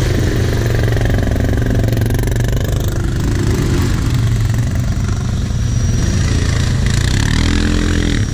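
Quad (ATV) engine idling steadily close by, with other quads running through a muddy water hole; near the end one revs up with a rising engine note.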